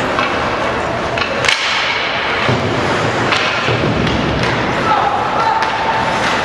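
Ice hockey play in a rink: several sharp clacks and thuds of sticks and puck against the boards over a steady wash of rink and crowd noise.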